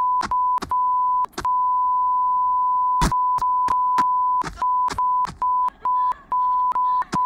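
Censor bleep: one steady beeping tone held over a long run of bleeped-out swearing. It cuts out and resumes many times, with a sharp click at each break.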